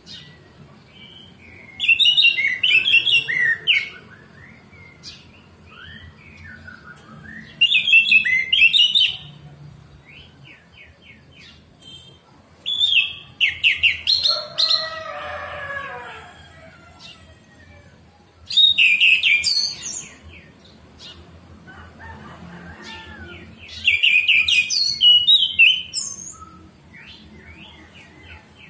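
Orange-headed thrush singing: five loud, varied phrases of about two seconds each, spaced roughly five to six seconds apart, with softer chirps in between.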